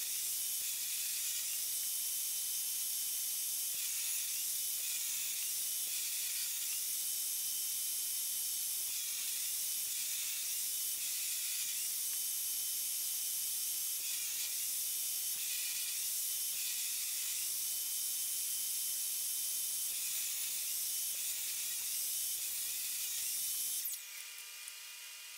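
Jobsite table saw running with a high whine and hiss. Its pitch sags briefly and recovers again and again as the blade takes load from slats being ripped. Near the end the sound cuts off abruptly, leaving a fainter steady hum.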